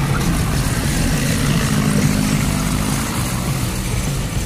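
Gasoline UAZ engine of a tracked UAZ Bukhanka (ZVM Usola) running steadily as the vehicle drives.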